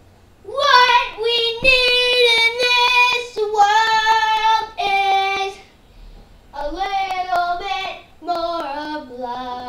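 A child singing unaccompanied in a high voice, held notes in two phrases with a pause of about a second between them, the second phrase stepping down in pitch.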